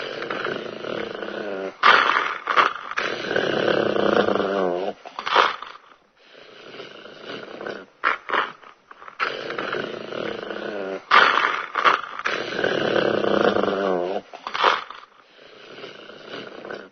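Aggressive dog growling and snarling, with short sharp outbursts between long rumbling growls. The same sequence plays twice, about nine seconds apart.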